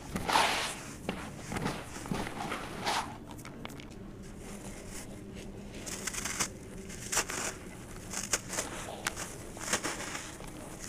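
Hands crumbling dry, grainy sand-cement in a basin: gritty crunching and rustling full of small crackles. Loudest right at the start as a handful is dropped, softer in the middle, then sharper crackling bursts as a rounded sand-cement block is squeezed and breaks apart.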